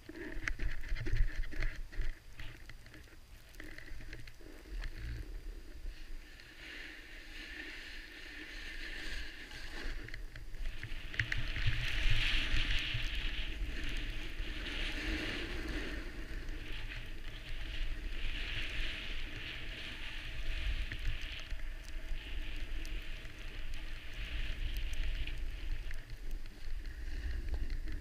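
Hiss and scrape of edges sliding over packed snow during a downhill run, growing louder about six seconds in, with wind buffeting the microphone as a low rumble throughout.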